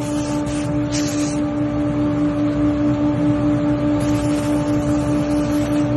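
Wood lathe running with a steady motor hum, while a hand-held turning tool cuts the spinning spoon blank with a hiss of shavings that brightens briefly about a second in.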